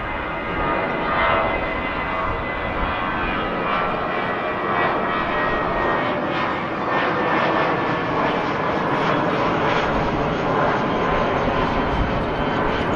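Twin turbofan engines of an Airbus A320-family jet airliner climbing out at takeoff power overhead: a steady jet rush with faint high engine tones.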